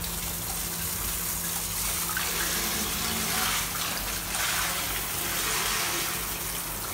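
Steady rush of water spraying from a handheld shower head, its blue-lever ball valve just opened.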